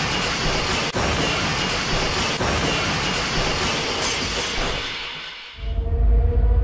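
A dense, steady harsh noise with a couple of faint clicks fades out about five seconds in. Music with a heavy bass then starts.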